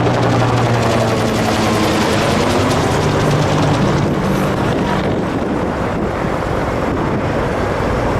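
Helicopter running nearby, a loud steady drone with the chop of its rotor.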